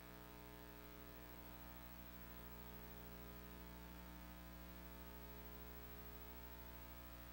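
Near silence, with a steady electrical mains hum and its overtones.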